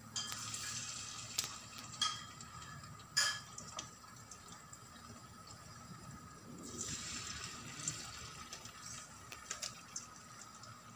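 Floured chicken pieces sizzling faintly in hot oil in a stainless steel frying pan as they are laid in, the sizzle swelling at the start and again about two-thirds through as each new piece goes in. A few sharp clicks of metal tongs against the pan come in between.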